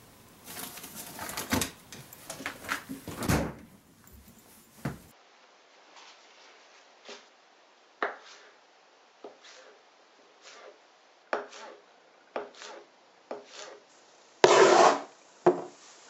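Rustling and knocks at an open refrigerator, ending in a thump about five seconds in. Then a kitchen knife taps on a plastic cutting board, slicing shiso leaves in sparse single strokes about once a second. A louder noise lasting about half a second comes near the end, followed by one more tap.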